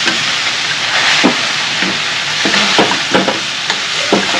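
Turkey sausage sizzling in a frying pan while being stirred, with the utensil knocking and scraping against the pan several times.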